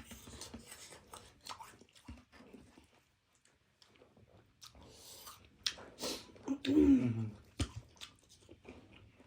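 Close-up chewing and mouth noises of someone eating spicy instant noodles: scattered wet clicks and bites, a short pause in the middle, and a brief voiced sound from the eater about seven seconds in.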